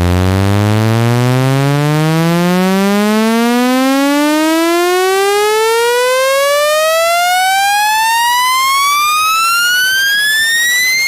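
Speaker-cleaner test tone: a loud, buzzy electronic tone sweeping steadily upward in pitch from a low bass hum to a high whine, played to shake water and dust out of a phone speaker.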